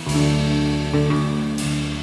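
Live instrumental rock trio playing: electric guitar and electric bass holding sustained notes over a drum kit, with cymbal crashes at the start and again near the end.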